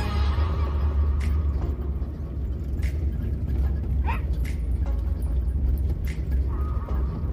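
Car driving on a hill road, heard from inside the cabin: a steady low rumble of engine and tyres, with a few light knocks and rattles. A short wavering high sound comes about four seconds in.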